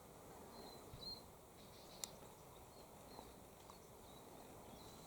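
Near silence: faint outdoor ambience with scattered faint high chirps and a single sharp click about two seconds in.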